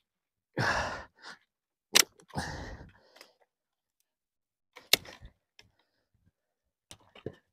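Dry branches snapping as they are broken by hand for firewood: two sharp cracks, about two and five seconds in, with hard breaths of effort and a few small crackles of twigs.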